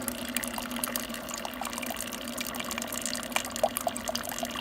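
Keurig single-cup coffee maker brewing: a steady machine hum with coffee trickling and dripping into the cup. It is brewing through properly again, the water no longer backing up into the reservoir, which the owner puts down to coffee grounds stuck in the needle.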